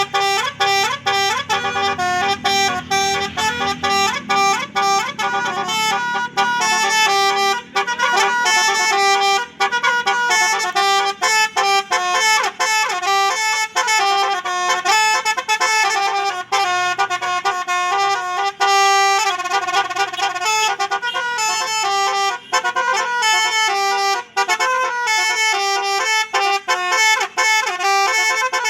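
Indonesian bus 'telolet' multi-tone horn playing a fast melody of rapidly changing notes, with short breaks between phrases. A low engine rumble sits under it for the first few seconds.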